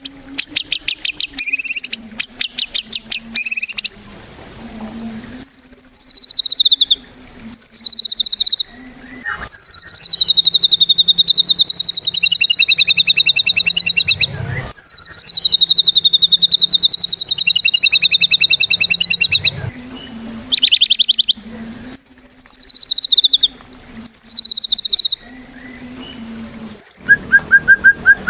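White-rumped shama singing loudly in varied phrases: fast trills, then two long warbling whistles that waver around one pitch for about five seconds each, then shorter phrases, with brief pauses between.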